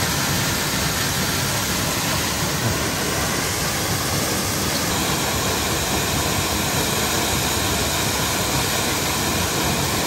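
Waterfall rushing close by: a steady, unbroken noise of falling water.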